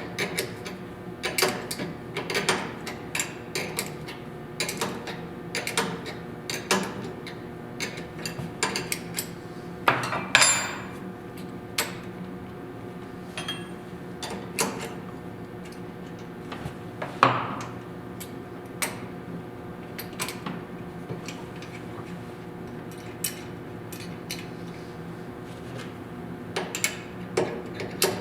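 Irregular metallic clicks and clinks of hand tools against the drill press's return spring housing and nut as the lock nut is loosened and the spring is wound one more turn tighter. A couple of longer metal scrapes come partway through, over a steady low hum.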